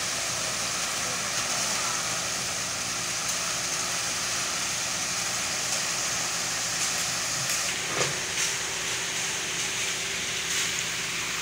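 Ready-mix concrete mixer truck running steadily, a constant rushing hiss, as wet concrete is discharged down its chute and spread.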